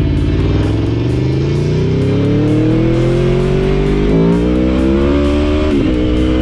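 Aprilia Tuono V4 Factory's V4 engine accelerating hard, its pitch climbing steadily, with an upshift about four seconds in and another near the end.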